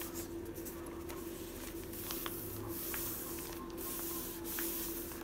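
Hands rubbing a freshly glued copy-paper page flat onto a journal page. It makes a soft swishing hiss that swells and fades in repeated strokes.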